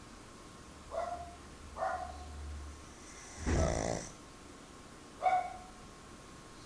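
A sleeping pug snoring: short, whistly snorts about one, two and five seconds in, and a longer, noisier snore in the middle, the loudest sound.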